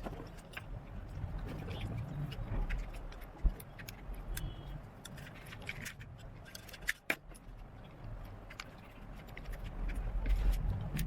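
Scattered light clicks and rustling from the plastic parts of a pair of headphones being handled, with a sharper click about three and a half seconds in and again about seven seconds in, over a low rumble.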